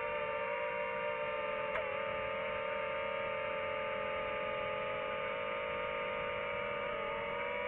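Quadcopter drone's propellers whining steadily, several close pitches together that dip a little as the motors change speed, with a single short click about two seconds in.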